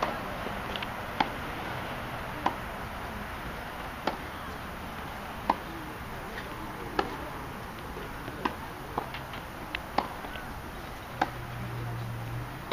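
Tennis balls being hit back and forth in a baseline rally: sharp racquet-strike and bounce pops, roughly one every one to one and a half seconds.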